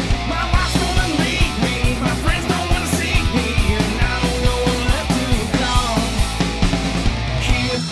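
Rock song with a steady, driving drum-kit beat.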